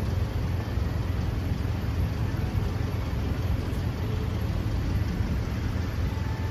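Honda Rebel 250's single-cylinder engine idling steadily.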